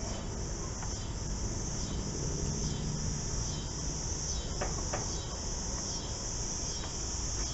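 Insects chirping in a steady pulsing rhythm, about one high pulse a second, with two light clicks about halfway through.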